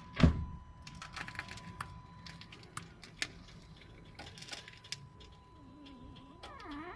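Knocking from the underside of a car as the steering is turned from lock to lock: one heavy knock about a quarter second in, then lighter scattered clicks and knocks.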